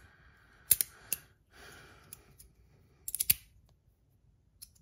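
Brass magnetic stacking slider fidget being worked by hand: two sharp clicks about a second in, a soft sliding rub, then a quick cluster of clicks around three seconds in as its pieces snap together.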